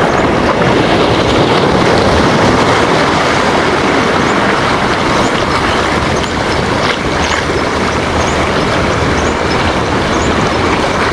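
Sea waves washing in a loud, steady rush, with faint splashy ticks over it.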